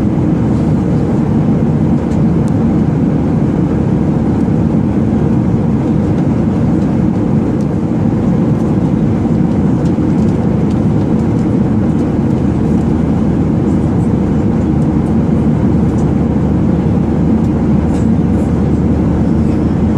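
Cabin noise inside an airliner in flight: a steady, loud rumble and hiss of engines and airflow, with a few faint high clicks.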